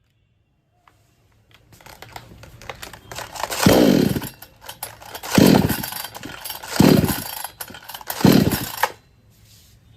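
A 58 cc two-stroke chainsaw engine gives four loud bursts about a second and a half apart, each dropping quickly in pitch, after a rising rattle and noise. It falls away near the end.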